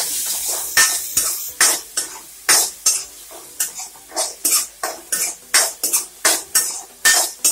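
A spoon scraping and stirring sliced onions and tomatoes in a metal kadai, about two strokes a second, over the sizzle of the frying oil. The sizzle is strongest at the start.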